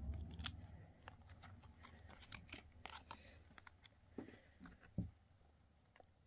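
Trading cards being handled and shuffled by hand: faint scattered clicks and slides of card stock, with a slightly louder soft knock about five seconds in.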